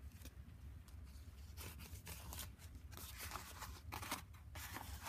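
Paper pages of a handmade collage journal rustling and crinkling as they are turned and handled by hand, in several short rustles in the second half.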